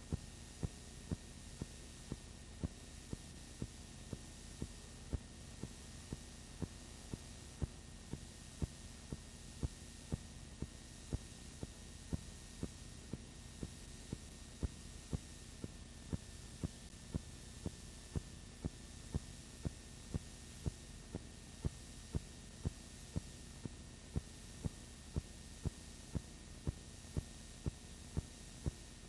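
Steady low electrical hum with sharp clicks repeating about twice a second, somewhat unevenly.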